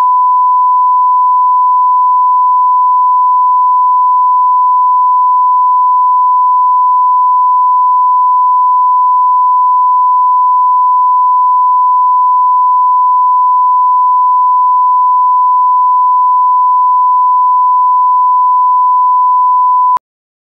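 Broadcast line-up reference tone, a single pure steady 1 kHz test tone played with the colour bars at the head of a TV programme tape. It is loud and unbroken, and cuts off abruptly just before the end.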